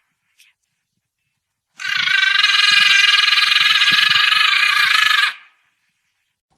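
A loud, steady animal call lasting about three and a half seconds, starting about two seconds in and stopping abruptly, with a slightly fluttering pitch.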